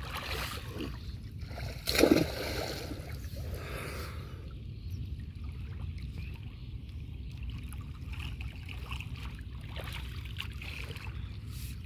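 Water splashing and sloshing as men wade chest-deep and pull branches out of a brush-pile fish trap, over a steady low rumble. A short, louder burst comes about two seconds in.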